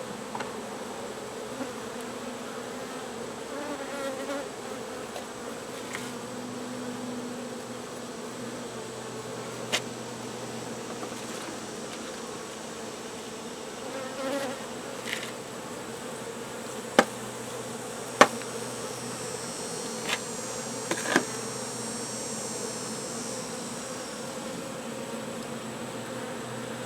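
Honey bees buzzing at an open hive, a steady hum. A few sharp knocks come from about ten seconds in, two of them louder than the rest.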